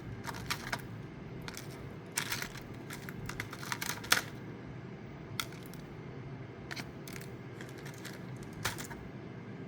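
Light irregular clicks and rattles of jumper wires and probe leads being handled and pushed into a solderless breadboard, over a steady low hum.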